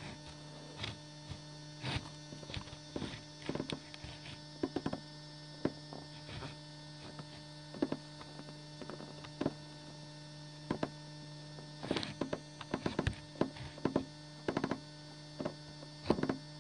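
A steady low electrical hum, with irregular small clicks and taps throughout that come more often near the end.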